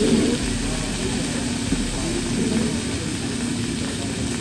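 Noodles and vegetables frying on a teppanyaki steel griddle: a steady sizzle mixed with the rush of the grill's ventilation fan.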